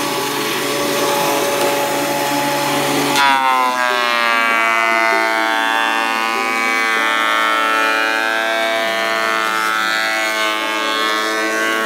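Ryobi AP-10 portable thickness planer running. About three seconds in, its whine drops in pitch and then wavers, the sign of the cutter head taking load as a board feeds through.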